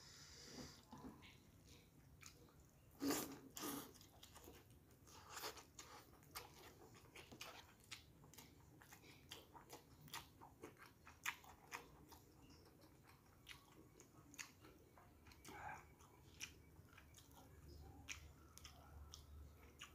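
Faint, close-up chewing and mouth sounds of a person eating rice, instant noodles and fried fish by hand: many soft wet clicks and smacks, with a louder burst about three seconds in.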